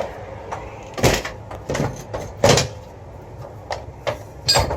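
Irregular knocks and clunks from a storefront door and its lock hardware being handled, about seven sharp hits, the loudest about two and a half seconds in.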